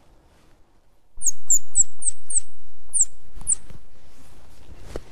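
A squirrel call blown in a quick series of short, loud, high chirps, each falling in pitch, about three to four a second, starting about a second in.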